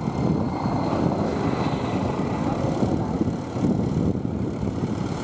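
Mahindra tractor's diesel engine running steadily under load while its iron cage wheels churn through flooded paddy mud, a dense, fast-pulsing drone.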